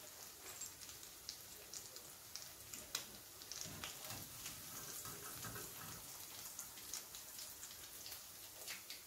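Potato and poha cutlets frying in hot oil, done: a faint steady sizzle with scattered crackles and pops.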